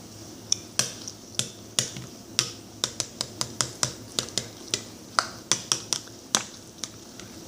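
A run of about twenty sharp, irregular clicks and taps, some coming in quick clusters, over a faint steady low hum.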